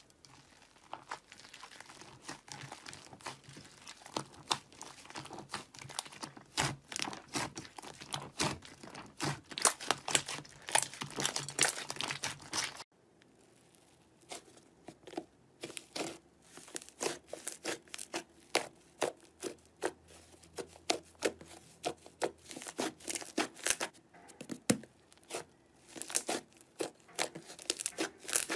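Slime being squeezed and worked by hand, making dense crackling and popping clicks, in two stretches with a sudden cut about 13 seconds in.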